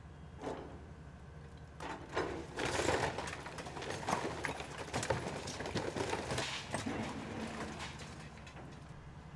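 Excavator engine running steadily under a clatter of bricks and masonry cracking and falling as its bucket breaks down a brick wall. The crashing and clattering is loudest from about two seconds in until about seven seconds.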